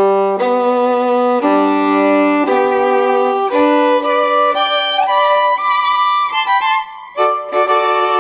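Solo violin music: a slow melody of held notes, one after another, with a brief break about seven seconds in.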